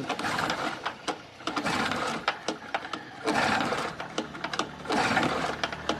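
Recoil starter of a small two-stroke portable generator engine pulled about four times, each pull a short whirring rattle, turning the engine over. The engine, stiff from being stuck, has no fuel yet, so it does not fire: the pulls work oil just put in the cylinder past the piston rings.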